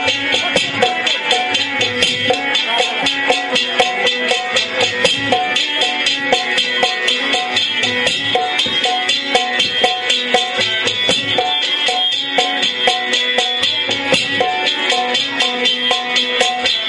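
Folk instrumental music: a plucked long-necked string instrument plays a melody over a quick, steady drum and rattle beat, with no singing.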